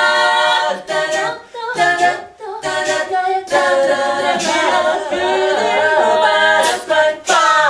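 A small group singing a Japanese song a cappella, several voices together in harmony, with sharp percussive hits between the phrases.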